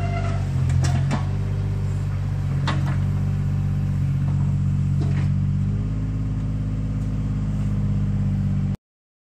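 Excavator's diesel engine running steadily while it works, with a few sharp metal clanks. The engine note changes just before 6 s, and the sound cuts off abruptly near the end.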